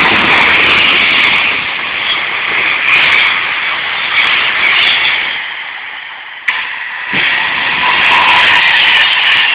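Electric passenger trains passing at speed: a loud, steady rush of wheel and air noise. It eases off just past the middle, with a sharp click, then builds again.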